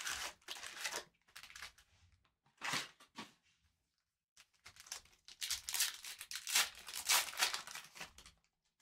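A trading-card pack wrapper being torn open and crinkled, in several short bursts with the longest stretch in the second half.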